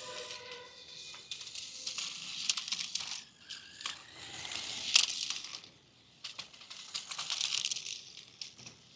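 Plastic clattering and scraping in irregular bursts, loudest about halfway through, with a short lull just after: a remote-control climbing car dragging a toy king cobra tied to it.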